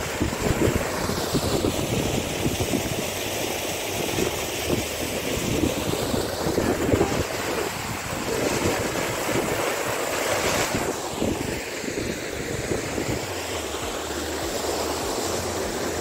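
Waterfall rushing steadily in strong flow, with wind buffeting the microphone.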